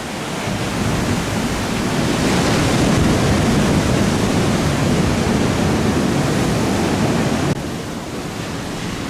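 Ocean surf: a steady rush of breaking waves that swells louder over the first few seconds, then drops off suddenly about seven and a half seconds in.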